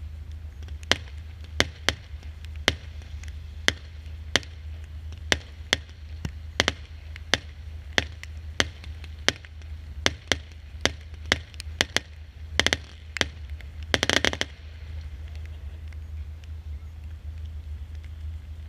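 A consumer firework cake (multi-shot battery) fires shot after shot, with sharp reports about every half second. It ends in two quick flurries of rapid cracks about two-thirds of the way through, then stops, leaving a steady low rumble.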